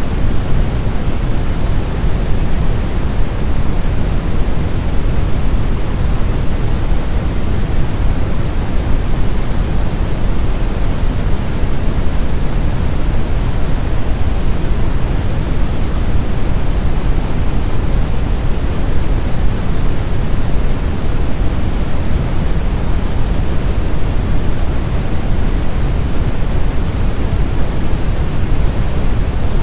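Deep, smooth brown noise: a steady rumbling hiss, heaviest in the bass and fading toward the treble, that never changes.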